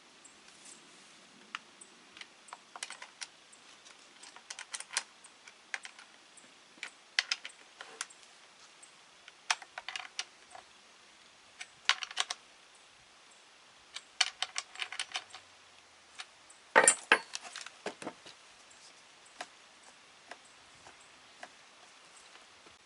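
Irregular small clicks and light clatters of hard objects being handled, with a louder cluster of knocks about two-thirds of the way through.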